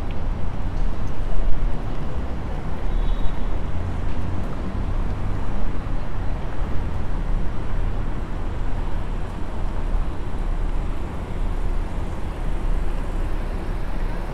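Road traffic on a city street at night: a steady low rumble of passing cars and their tyres, with no single event standing out.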